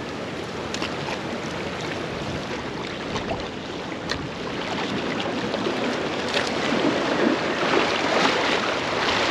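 Steady wind and small waves washing against the rocks of a jetty, a little louder in the second half, with a few faint clicks.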